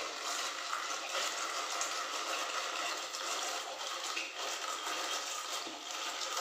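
Dried red chilies being chopped in a hand-cranked plastic chili cutter: a continuous dry crackling of many small cuts as the crank is turned steadily.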